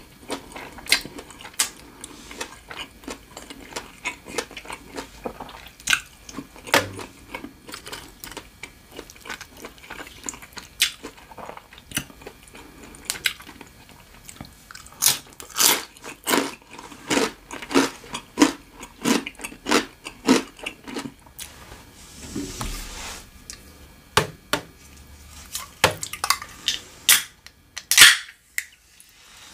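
Close-miked chewing: wet, smacking mouth sounds and crunching bites of someone eating sticky rice and green papaya salad by hand. Near the end, a single sharp pop, the loudest sound, as a soda can's tab is pulled open.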